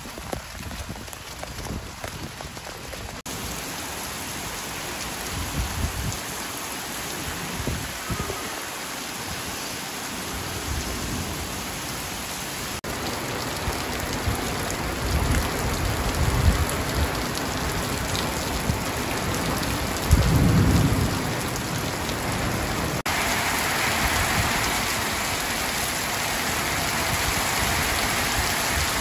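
Heavy thunderstorm rain falling steadily on brick paving and puddles, with several low rumbles of thunder, the loudest about two-thirds of the way through. The rain grows louder near the end.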